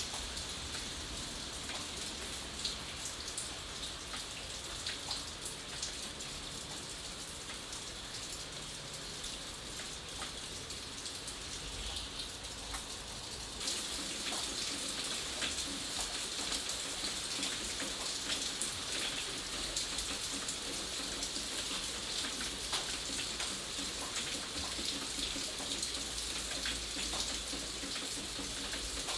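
Steady rain, with many separate drop hits standing out of the even hiss; it grows a little louder all at once about halfway through.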